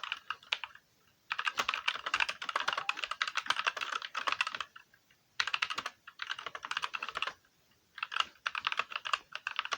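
Fast typing on a GK61 keyboard with Gateron optical black switches: quick runs of keystrokes in four bursts, with short pauses between them.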